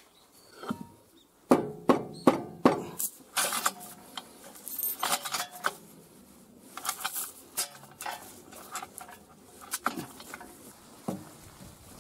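Steel chain of a chain hoist clinking and rattling in irregular bursts as it is handled and rigged around the excavator's rubber track, with a few sharper metal knocks about one and a half to three seconds in.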